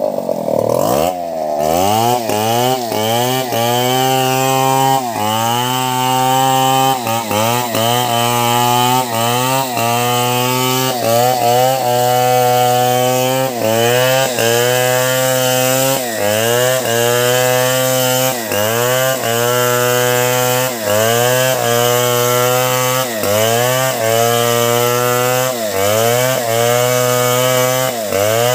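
Stihl petrol chainsaw running hard while cutting through a felled log. Its engine pitch sags and climbs back again and again, about once a second, as the chain bites into the wood.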